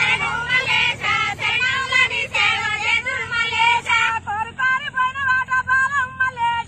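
Women singing a Telugu paddy-transplanting work song, unaccompanied. About four seconds in, the singing thins and the notes become longer and steadier.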